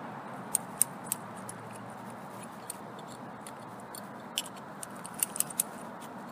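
Sharp metallic clicks in small irregular groups, a few near the start and a quicker cluster near the end, as an adjustable wrench turns a cable-tensioning drum to wind the trolley cable tight. A steady low hiss runs underneath.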